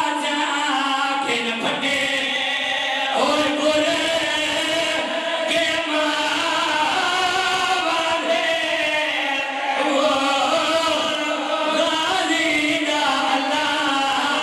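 Group of men chanting a noha, a mourning lament, in unison into a microphone, with one voice leading. The singing is loud and unbroken.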